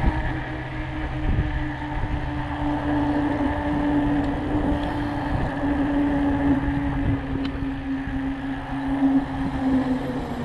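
Electric bike motor giving a steady hum under power, over wind and tyre rumble; the hum stops near the end as the motor cuts out.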